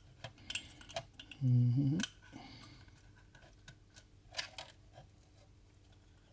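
Scattered light plastic clicks and knocks as the Matra Alice home computer's keyboard is handled and plugged back in, with a brief hum from a voice about a second and a half in.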